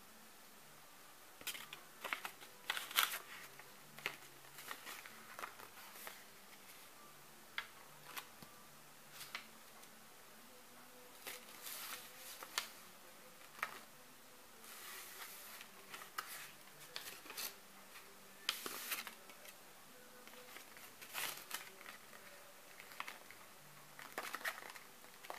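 Irregular close-up rustling and crinkling with scattered sharp clicks, coming in clusters a few seconds apart, like handling noise near the microphone.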